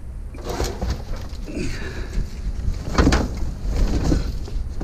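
Scrap being pulled and handled in a metal dumpster: a few knocks and clatters, the loudest about three seconds in, with a short scraping sound in between.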